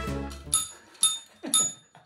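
A metal desk bell struck three times, about half a second apart, each strike giving a short bright ding, as the husky puppy presses it with her paw. Background music with a deep bass line fades out in the first half second.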